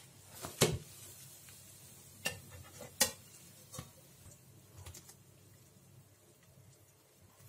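Frying pan and glass serving plate clinking and knocking together as a pan-cooked börek is turned out onto the plate: a few sharp knocks, the loudest about half a second in and another about three seconds in.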